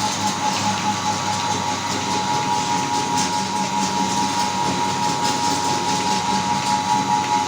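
Meat grinder running steadily while grinding Oreo cookies, a continuous mechanical drone with a faint whine.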